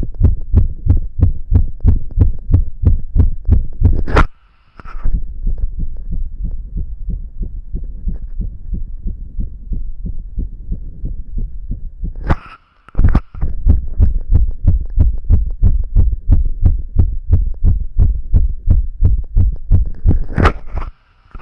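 A man's fast, regular heartbeat picked up close to the chest: dull, low lub-dub beats, about two a second. Three times a sharp knock breaks in, each followed by a brief dropout, and the beats are fainter for several seconds after the first one.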